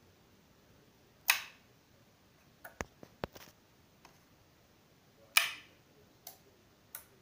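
Two sharp clicks of the AM-500S amplifier's front-panel push-button switch, about four seconds apart, with a few fainter ticks between and after them, as the amplifier is switched on for a test after its repair.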